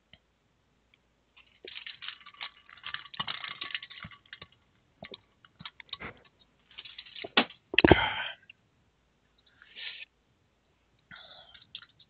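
Computer keyboard typing in irregular bursts of clicks, heard through a voice-call connection, with one louder knock about eight seconds in.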